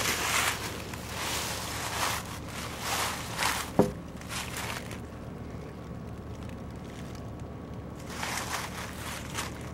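Dry fallen leaves rustling and crunching in bursts as a dog digs and noses through them, easing off about five seconds in and picking up again near the end. A brief pitched sound about four seconds in is the loudest moment.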